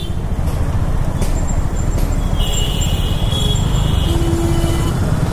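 Steady low rumble of wind and road noise while riding a TVS Ntorq 125 scooter in city traffic.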